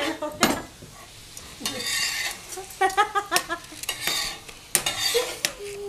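A utensil stirring in a kitchen vessel, with scraping stretches and a few sharp clinks.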